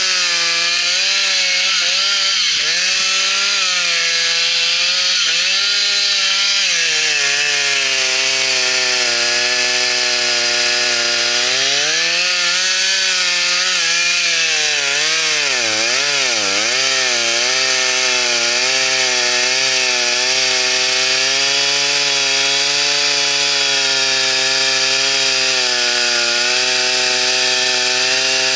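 Stihl two-stroke chainsaw running at full throttle while cutting through a thick dead oak trunk. Its engine note dips and recovers several times as the chain bogs down in the cut, most deeply about halfway through.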